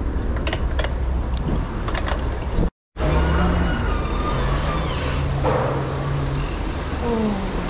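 Street traffic with heavy wind rumble on the microphone while riding. After a short dropout about three seconds in, a vehicle engine hums steadily for a few seconds, and a brief falling whine follows near the end.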